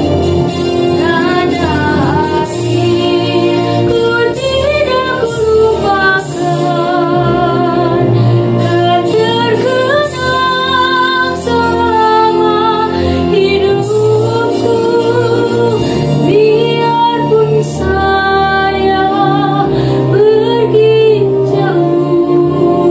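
A woman singing a solo song over instrumental accompaniment, her voice gliding between notes with vibrato on the held ones.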